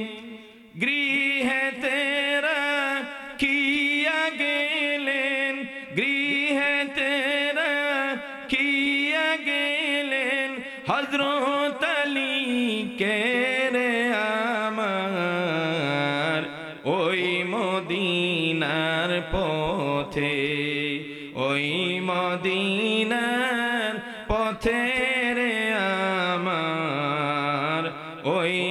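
A man singing a Bengali Islamic devotional song (gojol) solo, in long drawn-out notes that waver and glide up and down, with a short break just after the start.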